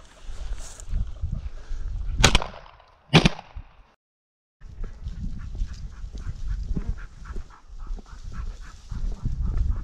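Two shotgun shots about a second apart, each with a short echo, from a double-barrelled shotgun. Before them, dry grass swishes underfoot; after a sudden cut, footsteps and rustling continue.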